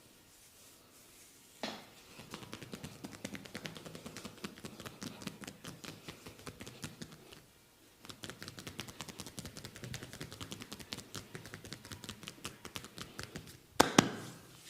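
Massage tapping: hands beating rapidly on the skin in two runs of several seconds each, with a short pause between them. Two loud sharp snaps come near the end.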